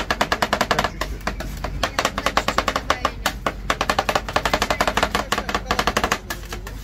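Two metal spatulas chopping rapidly on the steel cold plate of a rolled ice cream machine, a fast run of sharp metallic taps at about eight to ten a second, as chocolate and blackberries are worked into the freezing cream base.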